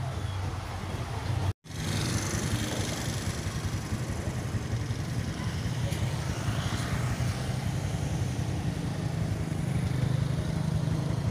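Road traffic: motorbike and car engines running as vehicles drive past, a steady low hum with road noise. The sound drops out completely for an instant about a second and a half in.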